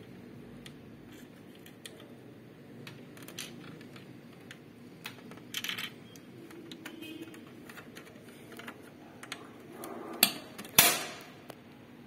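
Plastic cover strip of an HP LaserJet P1005 printer being handled and fitted onto the printer's casing, with light plastic clicks and rattles, then two loud snaps about half a second apart near the end as it clips into place.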